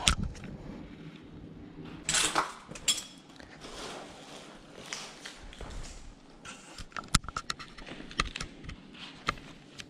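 Footsteps crunching and scuffing over debris on a lab floor, with scattered sharp knocks and clicks, and a thump at the very start.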